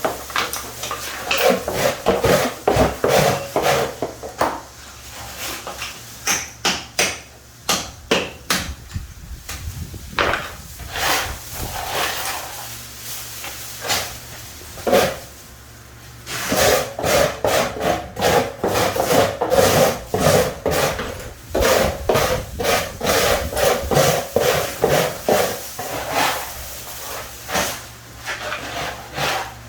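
Hand tool scraping and rubbing over a hard surface in quick repeated strokes, in two long runs with a lull between, broken by scattered sharp knocks and taps.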